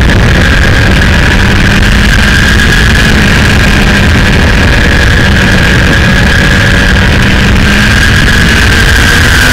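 Kawasaki Ninja sport bike's engine running at a steady cruising pitch, under heavy wind and road noise on a microphone mounted on the fairing.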